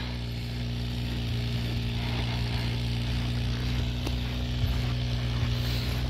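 A vehicle engine running with a steady, unchanging low hum.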